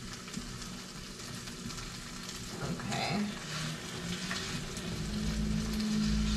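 Cold rice frying with garlic and scallions in a pan, a steady sizzle, while a spatula scrapes and chops at it to break up the clumps, with a spell of scraping clatter in the middle. A low steady hum comes in near the end.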